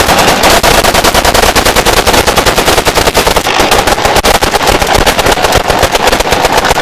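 Celebratory automatic gunfire: a long, unbroken stream of rapid shots, too fast and overlapping to count.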